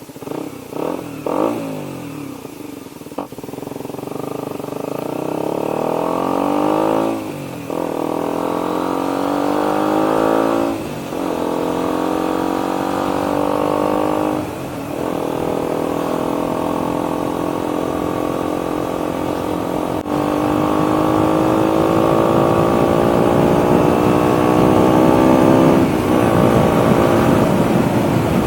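KTM 125 Duke's single-cylinder four-stroke engine, breathing through a new Radical Racing full exhaust system with its dB killer fitted, accelerating through the gears. The engine note climbs steadily and drops back briefly at each of four gear changes, about 7, 11, 14 and 26 seconds in.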